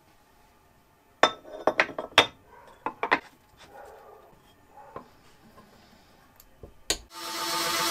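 Metal clinks and knocks as an aluminium plate is set into a steel machine vise and the vise is clamped down with a hex key, a quick run of sharp clinks followed by a few lighter ticks. A loud steady sound starts near the end.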